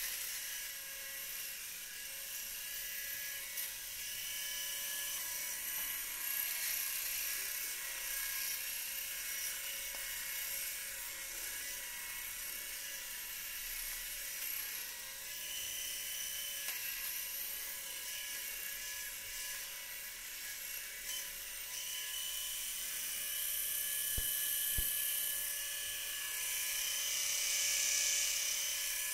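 Three-head rotary electric shaver running steadily with a high whining motor hum while it is passed over the face to finish off the remaining stubble. It grows a little louder near the end as the shaving heads come close.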